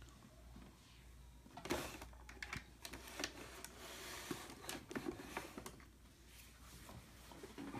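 Faint, irregular small clicks and rustles of objects being handled, starting about two seconds in and dying away after about six seconds.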